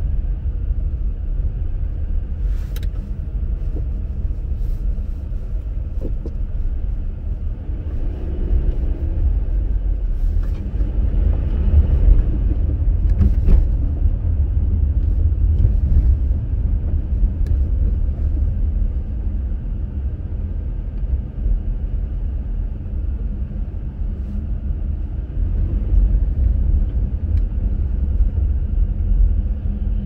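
Steady low rumble inside a Subaru Crosstrek's cabin while it drives on a snow-covered road: winter-tyre and road noise with engine hum, and a few faint clicks.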